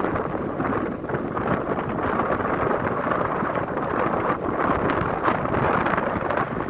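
Wind buffeting the microphone over the steady roar of a heavy jet airliner's engines at takeoff power.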